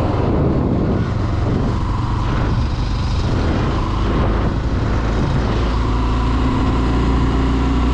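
Honda Twister motorcycle's single-cylinder engine running steadily under the rush of wind on the rider's microphone.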